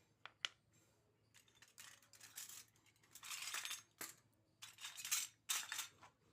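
Small plastic toy kitchen pieces and packaging being handled: two sharp clicks near the start, a tap about four seconds in, and several short rustling, scraping stretches in between.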